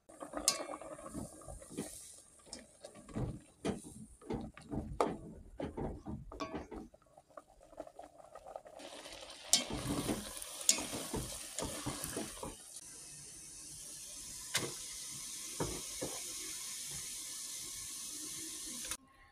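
Rice being stirred in an aluminium pot, a run of knocks and scrapes against the metal. After that comes a steady hiss from the rice boiling in its foamy water, with a few clinks of the pot.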